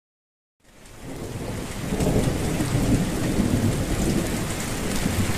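Thunderstorm sound effect: heavy rain with a rolling rumble of thunder. It fades in from silence about half a second in and swells to full strength by about two seconds.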